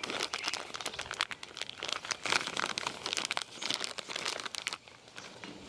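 Crinkling and rustling as something is handled by hand, with many small irregular crackles, dying down about five seconds in.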